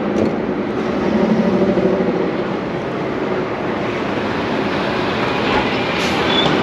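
City road traffic passing close by, a steady rumble of engines and tyres, with a heavy diesel lorry going past near the end.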